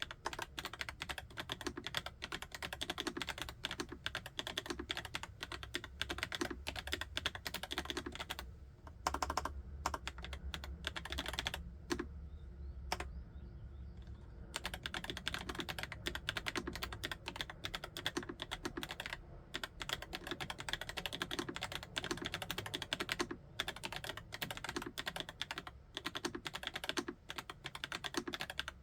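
Rapid, continuous typing on a YUNZII QL75 typewriter-style mechanical keyboard with Cocoa Cream V2 switches. For a couple of seconds midway it slows to a few separate keystrokes, then picks up again.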